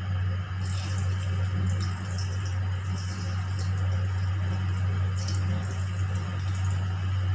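Gujiyas frying in hot desi ghee in a kadhai on low heat: a steady sizzling hiss with fine crackles, which starts about half a second in as the first one goes into the ghee. A steady low hum runs underneath.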